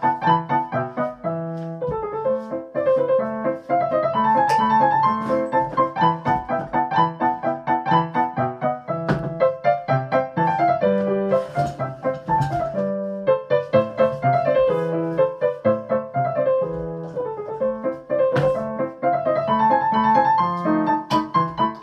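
Piano music: a busy piece of many quick notes played one after another.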